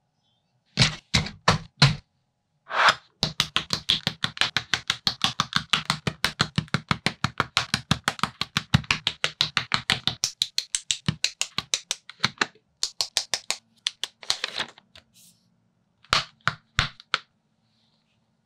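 Plastic building bricks snapping together as pieces are pressed into place: a few separate clicks, then a fast run of about six clicks a second from about three seconds in to about eleven seconds, then scattered clicks again.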